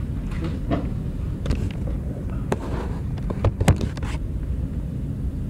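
Scattered clicks and knocks from the camera being handled and turned, the loudest about two-thirds of the way through, over a steady low hum.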